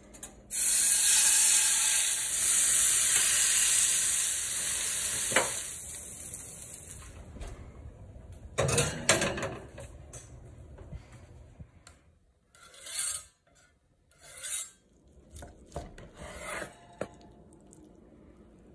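Seasoned stuffed chicken breast laid into hot oil in a stainless-steel skillet, sizzling loudly for about four seconds and then dying away. Later come a few short scrapes and knocks.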